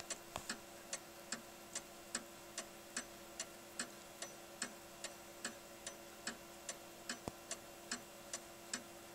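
Ganter single-fusee 12-inch dial clock ticking steadily, about two and a half ticks a second, tick and tock alternating. It is a soft, mellow tick, from the clock's half-deadbeat escapement.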